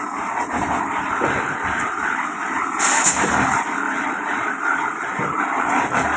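A machine running steadily, with a short burst of hiss about three seconds in.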